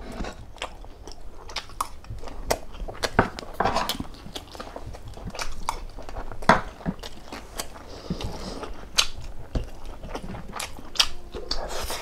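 A person eating a spicy beef bone-marrow dish, close-miked: wet chewing and biting with frequent sharp smacks and clicks.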